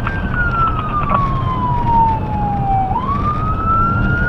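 Electronic emergency-vehicle siren on a responding car sounding a wail: the pitch falls slowly for about three seconds, then sweeps quickly back up, over steady road and engine noise.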